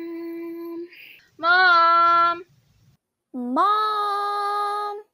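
A child singing three long held notes without words, the second the loudest; the third scoops up from a lower pitch before holding steady.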